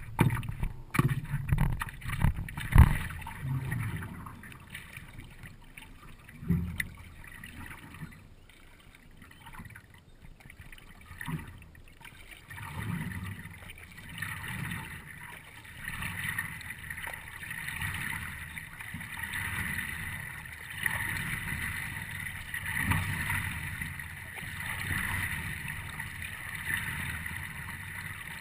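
Water gurgling and splashing against the nose of a paddleboard on a lake. A few sharp knocks on the board come in the first three seconds. From about halfway on, the water sound swells and fades every second or two.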